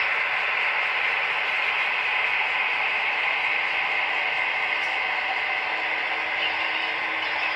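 HO scale freight cars rolling along model railroad track: a steady whir and rattle of small metal wheels on the rails.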